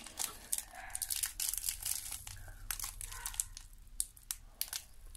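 Clear plastic sweets wrapper crinkling and tearing as it is handled and opened around a rainbow sour candy strip, a run of quick irregular crackles.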